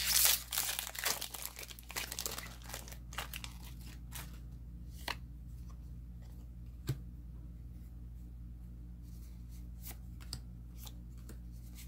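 A foil Magic: The Gathering collector booster pack wrapper being torn open and crinkled for the first couple of seconds. After that come scattered soft clicks of the trading cards being handled and flicked through.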